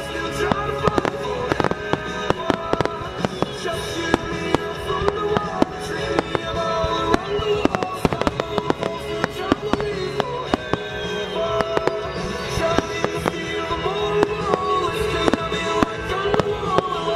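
Fireworks display: aerial shells bursting in quick succession, a dense run of sharp bangs and crackling, with music playing throughout.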